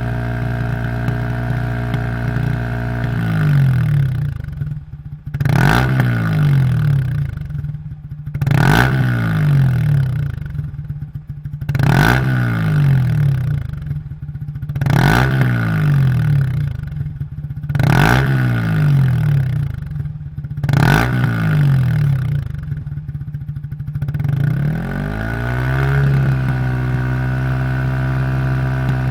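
Yamaha YZF-R15's 155 cc single-cylinder engine through a Yoshimura Heptaforce full-system exhaust, idling and then blipped six times about three seconds apart, each rev with a sharp crack, before it settles back to idle near the end.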